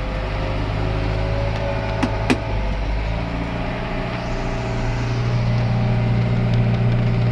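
Vehicle engine running steadily as it drives off, with a faint whine slowly rising in pitch and two sharp clicks about two seconds in. The engine gets louder from about four seconds in as it pulls away.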